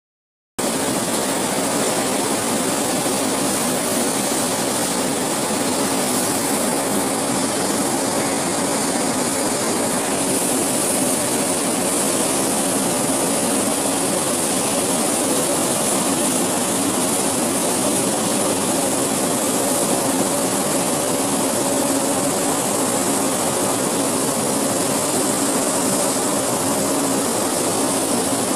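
Two-strand billet continuous casting machine and its roller tables running in a steel plant: a loud, steady, dense hiss of machinery with a faint low hum underneath, with no breaks.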